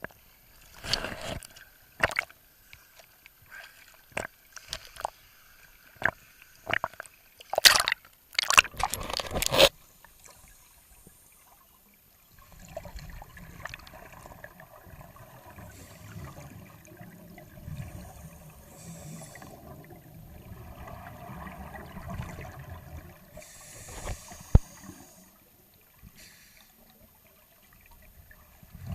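Water sloshing and splashing against a camera held at the water's surface, in irregular bursts, loudest near the ten-second mark. Once it goes under, a muffled, steady underwater rumble with gurgling bubbles from the scuba divers' exhaled air.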